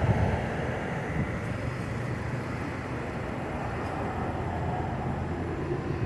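Steady street traffic noise: a low rumble of passing cars.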